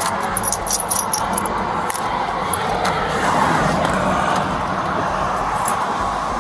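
Clothing and duty gear rubbing and jangling against a body-worn camera as an officer climbs out of a patrol car, with light clicks in the first second or so, over a steady wash of outdoor noise with a low hum.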